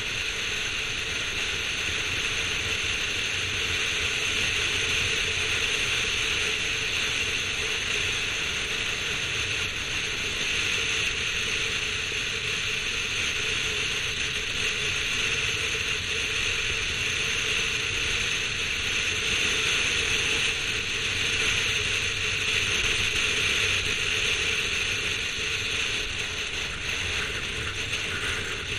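Steady wind and road noise from a car driving at speed, picked up by a camera mounted outside on the car's roof.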